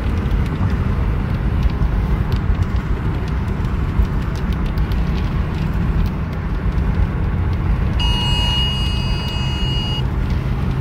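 Steady low rumble of road and tyre noise heard inside a moving car's cabin, with faint ticks over it. About eight seconds in, a steady electronic beep sounds for about two seconds and then cuts off.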